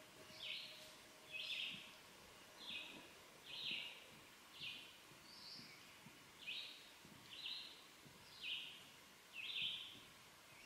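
A songbird singing short, separate phrases, roughly one a second, each a little different in pitch.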